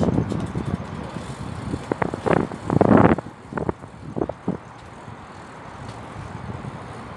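Road traffic noise: a steady hum, with a run of irregular louder rumbles and thumps during the first four or five seconds, the loudest about three seconds in.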